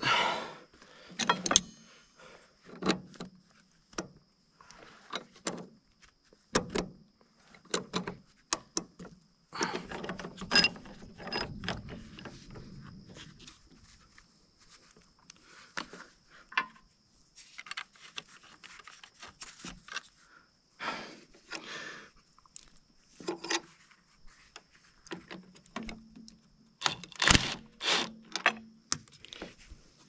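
Hand tools and steel winch cable clinking and knocking: locking pliers, tongue-and-groove pliers and clamps handled against the wire rope on the winch drum, in irregular sharp clicks with some scraping, the sharpest run of clicks near the end.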